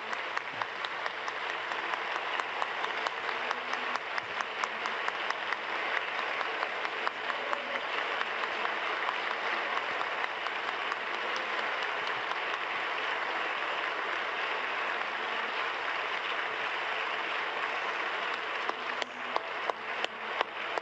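A large crowd applauding steadily. Close, separate claps stand out near the end.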